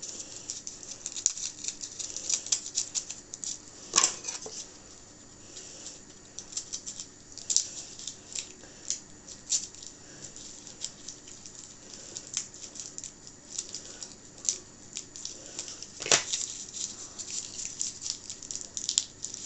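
Kitchen handling noises: light, irregular clicking and crackling as food and utensils are handled at the worktop, with two sharper knocks about four seconds in and again near sixteen seconds in.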